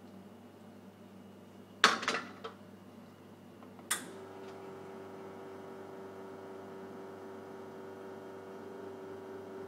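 Espresso machine: metallic clatter of the portafilter being seated and locked into the group head about two seconds in, then a click and the pump starting with a steady hum as a shot begins to brew.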